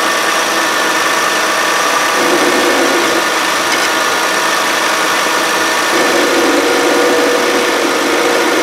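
The 3.5-litre V6 of a 2013 Kia Sorento idling, with its serpentine belt running over the pulleys. A rod held on the idler pulley bolt brings out a rougher, louder growl twice, about two seconds in and again about six seconds in. The owner takes this for a worn idler pulley bearing.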